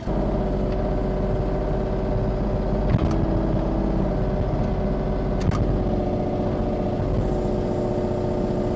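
Kubota U35-4 mini excavator's diesel engine running steadily under hydraulic work as the bucket and thumb grab and lift a log. Two short sharp knocks about three and five and a half seconds in.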